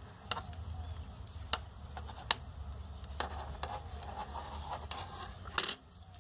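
Knitting needles clicking together at an irregular pace as stitches are knitted, with a few sharp clicks and the strongest one near the end, over a low steady hum.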